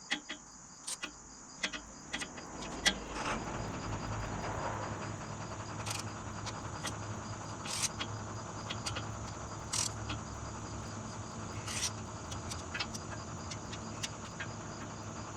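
Crickets chirring steadily, with a vehicle engine hum coming up about three seconds in. Over it, intermittent short clicks of a ratchet wrench on a long extension working a bolt loose.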